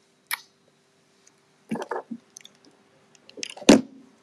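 Chewing close to the microphone: a few short, wet mouth sounds, the loudest near the end, over a faint steady hum.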